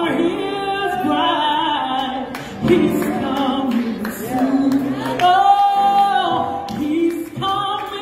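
Woman singing a gospel song through a handheld microphone, holding long notes that swoop and bend, over instrumental accompaniment.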